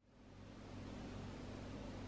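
Faint steady hiss with a low hum underneath, fading up from a moment of silence at the start: background room tone.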